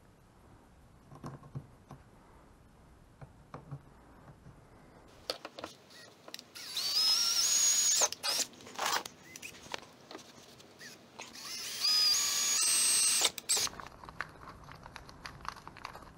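Cordless drill drilling into the car's black plastic sill trim in two short runs, each a whine that rises quickly to a steady speed. Faint clicks and rustles of handling come before the first run.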